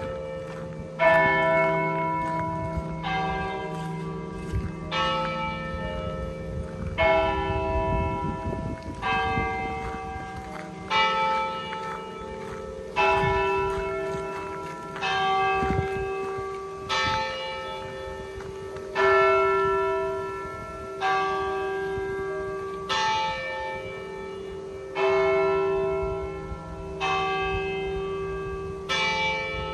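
Church bells of Turku's Martin Church pealing: several swinging bells strike in turn, about once a second, with the louder strokes about every two seconds. Their tones ring on and overlap over a steady low hum.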